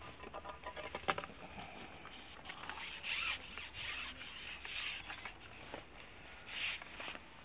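Close handling noise: hands, arm and sleeve rubbing and rustling right at the camera microphone, with a sharp click about a second in and several short scratchy swishes after it.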